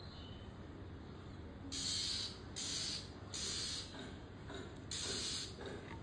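A fledgling songbird giving a series of short hissing rasps, starting about two seconds in and repeating a little faster than once a second.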